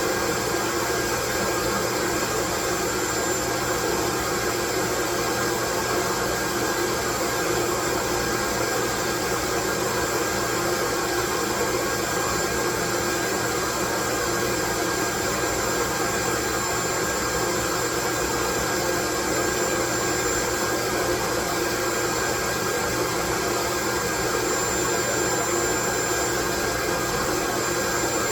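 Steady, unchanging white noise, sounding like a hair dryer, with a faint high steady whine running through it.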